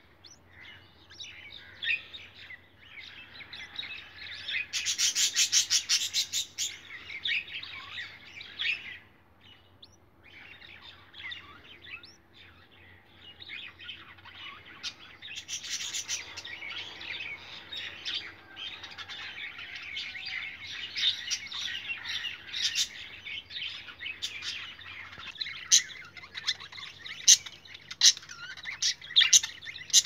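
Budgerigars chirping almost without a break, with a fast run of chirps about five seconds in and sharper, louder chirps near the end.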